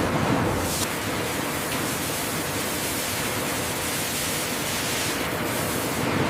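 Steady rushing of water in an avocado washing line.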